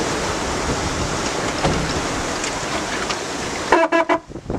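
Steady rush of water and wind along the hull of a Swan 45 racing yacht sailing fast, planing with a foaming wake. Near the end a brief pitched sound cuts through the rush.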